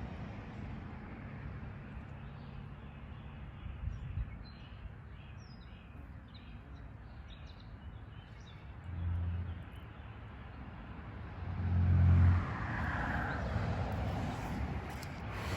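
Outdoor ambience: a steady low rumble with a few faint bird chirps a few seconds in. Two louder low bumps come about nine and twelve seconds in, the second the loudest, followed by a rougher hiss.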